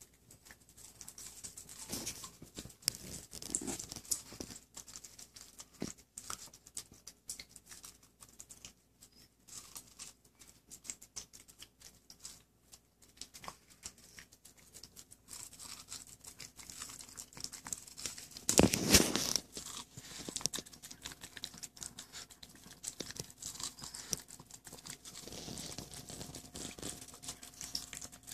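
Shih Tzu gnawing kernels off a hand-held cob of corn on the cob: a steady run of small crunches and clicks of teeth on the cob, with one louder burst of noise about two-thirds of the way through.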